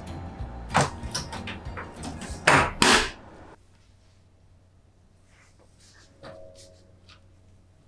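A few sharp knocks and clacks of hard objects being handled, the loudest two in quick succession about two and a half to three seconds in, followed by only a few faint clicks.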